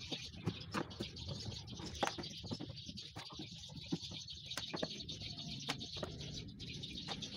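Scattered small clicks and taps of a screwdriver working the screws of an amplified speaker's plastic rear panel, with birds calling in the background.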